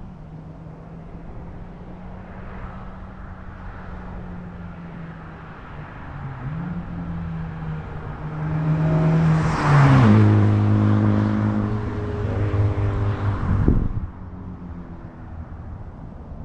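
Exhaust of a 2020 Honda Civic Type R FK8 with its muffler and resonator deleted: the turbocharged four-cylinder runs steadily, then accelerates hard from about six seconds in, its pitch rising and shifting near the middle, and cuts off abruptly as the throttle is lifted near the end, settling back to a steady low tone.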